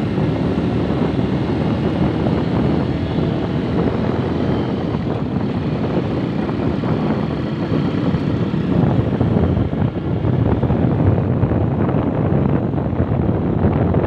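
Vehicle engine and road noise from riding along a road, a steady dense rumble with wind on the microphone.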